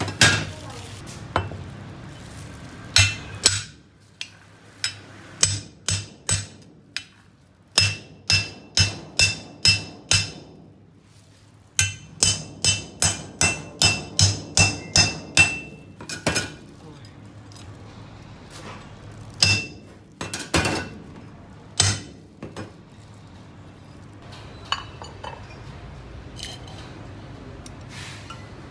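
Heavy cleaver chopping pieces of a flathead catfish on a thick round wooden chopping block. The strikes come in quick runs of about two a second, each a sharp chop with a short metallic ring. Past the middle only a few scattered chops follow, then they stop.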